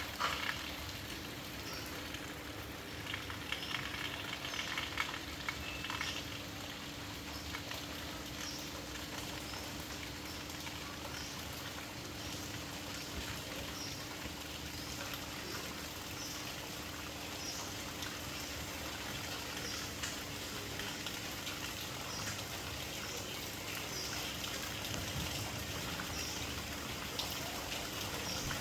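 A steady rushing noise, like running water, with a bird's short high call repeating about once a second over it and a faint low hum underneath.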